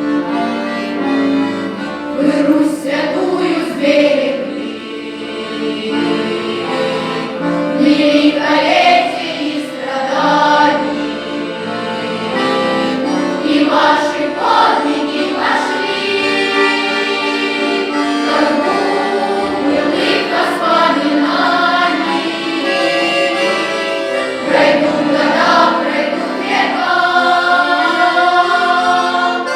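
A youth folk-song choir singing in several-part harmony over instrumental backing.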